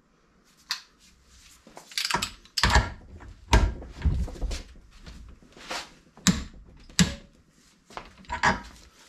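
Torque wrench working a nut on a classic Mini's front swivel assembly up to 110 Nm: a string of irregular sharp clicks and knocks, with a few heavier clunks in the first half.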